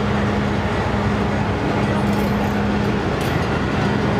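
Heritage passenger train cars rolling slowly past on the track, a steady rumble with a low hum running under it.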